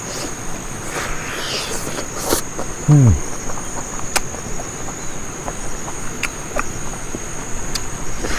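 Steady high-pitched insect drone with scattered sharp clicks of wet mouth-smacking from eating by hand. About three seconds in, one short low sound drops steeply in pitch, the loudest moment.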